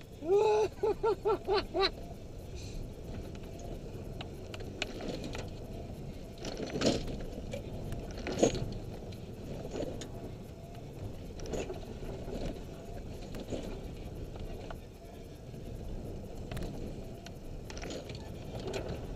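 Vehicle driving on a gravel road, heard from inside the cabin: steady tyre and road noise with rattling and scattered knocks as it rolls over stones and ruts. Near the start, a loud pitched sound rises and then pulses five or six times in quick succession.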